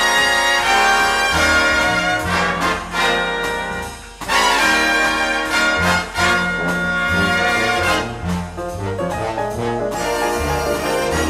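1962 jazz orchestra recording, with trumpets and trombones playing loud held chords over a moving bass line. The band drops away briefly about four seconds in, then comes back in.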